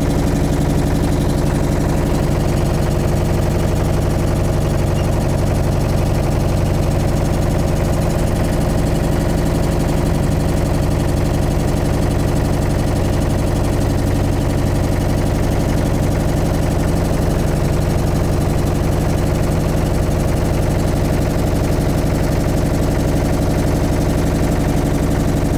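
A motorboat's engine running steadily at a constant speed, an even drone with a fast, regular beat that never rises or falls.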